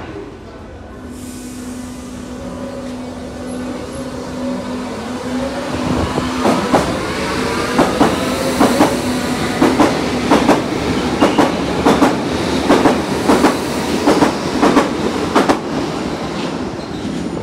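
Berlin U-Bahn train pulling out of the station. A steady tone runs for the first few seconds. Then from about six seconds in the drive's whine rises in pitch as it accelerates, while the wheels clack over rail joints in a repeating, often paired rhythm.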